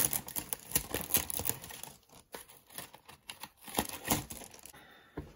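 Plastic snack packaging crinkling and rustling as it is handled, with quick light clicks; it fades out near the end.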